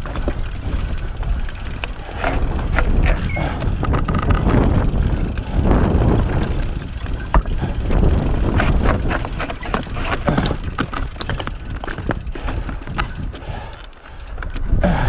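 Mountain bike riding down rough rock: the tyres rumble over stone slabs, and the bike rattles and clatters with many sharp knocks, over a steady low rumble of wind on the microphone.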